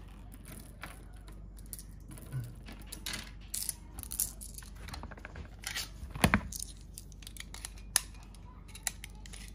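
Faint scattered clicks and rattles of a blank pistol's magazine and brass blank cartridges being handled, with one sharper click about six seconds in and cartridges clicking into the magazine near the end.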